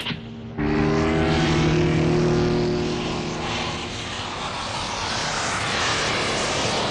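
Small propeller aircraft's engine running with a rushing noise. The engine hum fades about halfway through, leaving a steady rushing.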